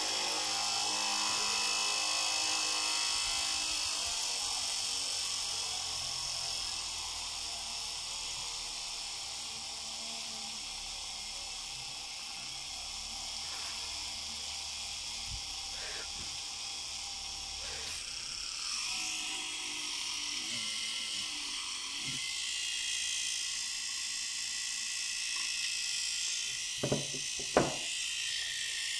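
Homemade drill built from a 775 DC motor, running steadily with a high whine as its twist bit bores into a piece of wood. Two sharp knocks come close together near the end.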